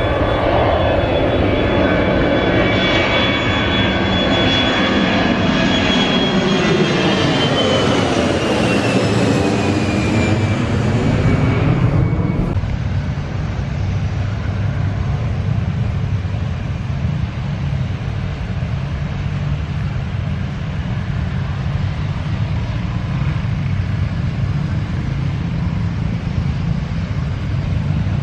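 Jet airliner passing close by, its engine whine falling steadily in pitch as it goes. About twelve seconds in the sound cuts off suddenly and a steady low rumble carries on.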